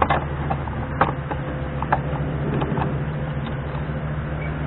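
Intermodal freight train of spine cars loaded with semi-trailers rolling past close by: a steady low rumble of wheels on rail, with sharp clanks, the loudest about once a second over the first two seconds.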